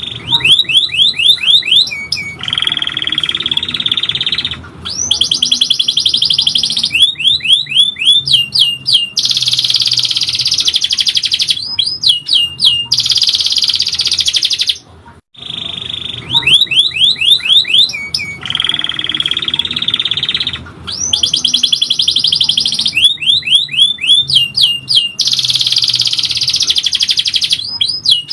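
Domestic canary singing: long, rapid rolling trills alternating with runs of quick rising whistles, high-pitched and loud. The same sequence of phrases comes round again about every fifteen seconds, as in a looped tutor recording.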